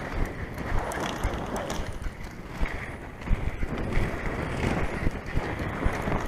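Inline skate wheels rolling over pavement, a steady rough rumble with scattered clicks and knocks, and wind buffeting the microphone.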